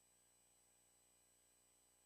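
Near silence: a faint, steady background hiss with no audible strikes or clicks.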